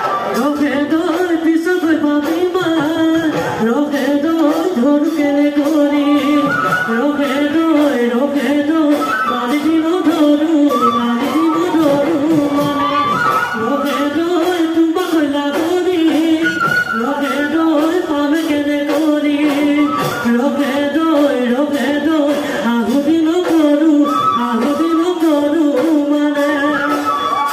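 Live Bihu music: singing over dhol drums beating a steady rhythm, the same melodic phrase repeating every couple of seconds.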